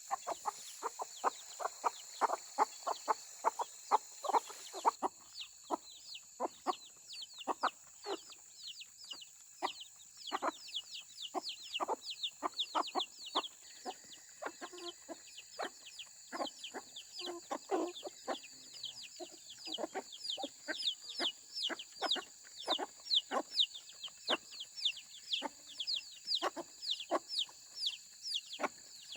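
Chickens clucking in quick short notes, with chicks peeping in high, falling cheeps over them.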